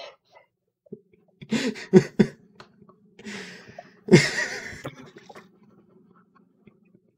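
Non-speech mouth and throat noises from a person: a low steady hum starting about a second in, a few short sharp bursts, a breathy hiss, and a louder burst about four seconds in.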